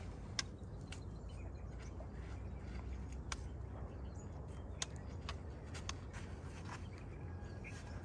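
Dry twigs and leaves underfoot on a scrub path: scattered sharp clicks and crackles at irregular intervals, over a low steady rumble.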